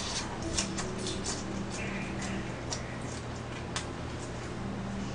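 A person chewing a mouthful of food with wet smacking mouth clicks, several a second and irregular.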